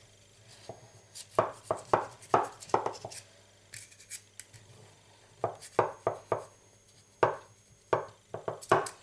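Sharp knife cutting through vanilla sponge cake around a metal heart-shaped cutter, the blade scraping and knocking against the cutter's edge. The cuts come as short strokes in irregular bunches, with brief pauses between.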